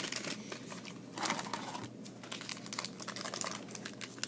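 Trading cards being pulled out of a foil pack wrapper and handled, with an irregular crinkling rustle that is loudest about a second in.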